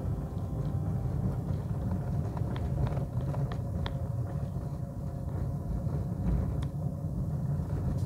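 Car driving on an unpaved dirt road, heard from inside the cabin: a steady low rumble of engine and tyres on the gravel surface, with a few light ticks.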